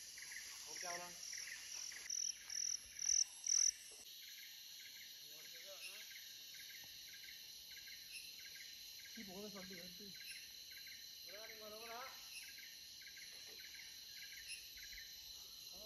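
Forest insects chirping in a steady rhythm, about two short pulses a second. A run of seven higher chirps, growing louder, comes in the first four seconds.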